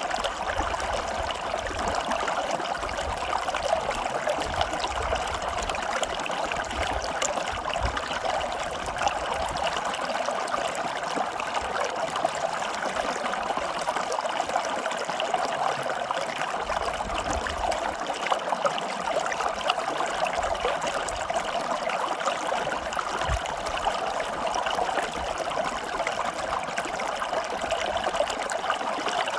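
Water flowing steadily, a continuous trickling, bubbling stream-like rush with no pauses.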